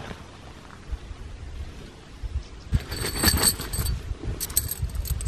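Wind buffeting the microphone with a low rumble, then metal tent pegs clinking and jingling together as they are handled at their bag, in two bursts: one about three seconds in and a shorter one near the end.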